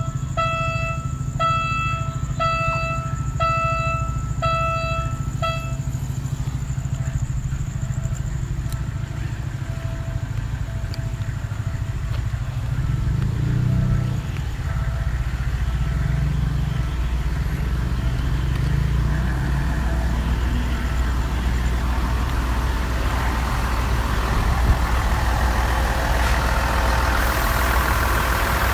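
A Philippine National Railways diesel multiple unit approaching and passing close by, its diesel engine giving a steady low rumble. Over the first six seconds a string of about eight short, evenly spaced beeps sounds, roughly one and a half a second. The rumble and a rushing wheel-on-rail noise grow louder in the last several seconds as the cars roll past.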